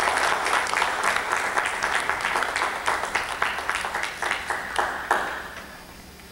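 Audience applauding, the dense applause thinning to a few scattered claps and dying out about five seconds in.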